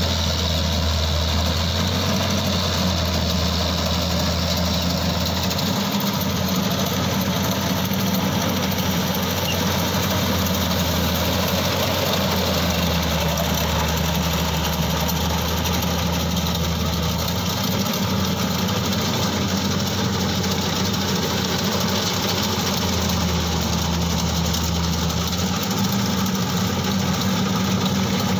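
CLAAS Crop Tiger 30 combine harvester running steadily while harvesting paddy: a continuous engine hum with threshing machinery noise over it. The engine note dips slightly in pitch twice, about halfway through and again near the end, then recovers.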